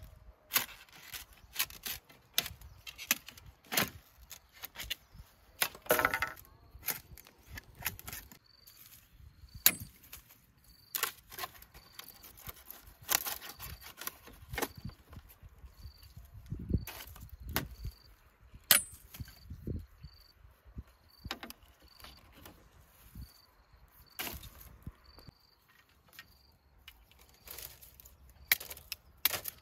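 Irregular sharp knocks and taps of hand work on wood, now sparse, now several a second. From about a third of the way in, a short high chirp repeats about once a second.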